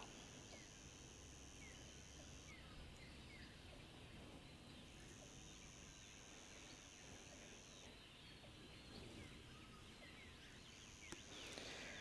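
Faint tropical forest ambience: a high, steady insect drone that starts and stops three times, with a few short bird chirps about two to three seconds in.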